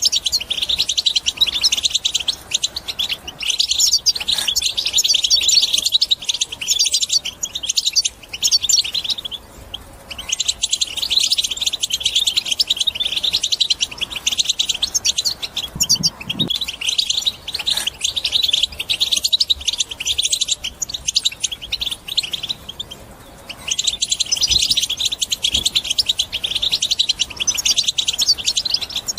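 European goldfinch singing a fast, high twittering song in long unbroken phrases, with short pauses about ten, sixteen and twenty-three seconds in.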